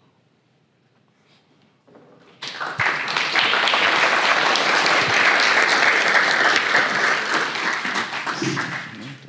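Audience applauding. The clapping starts suddenly about two and a half seconds in, holds steady, and dies away near the end.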